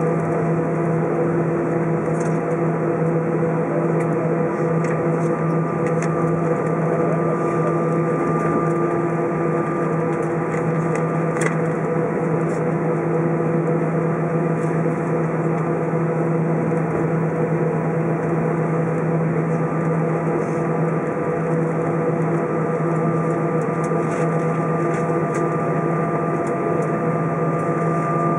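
Steady cabin noise of an Airbus A320 taxiing after landing: the idling engines and cabin air make a constant hum with several held tones, broken only by a few faint ticks.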